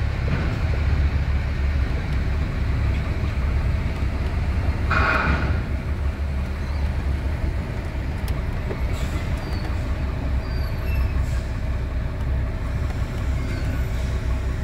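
Heavy truck's diesel engine running at a steady low idle, with a short hiss about five seconds in.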